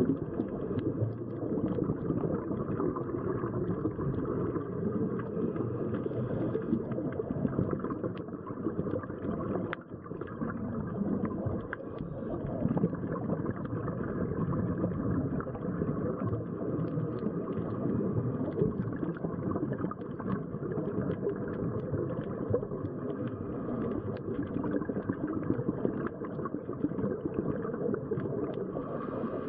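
Underwater ambient noise recorded by a camera on a scuba dive: a steady muffled rumble and wash, with faint scattered crackles.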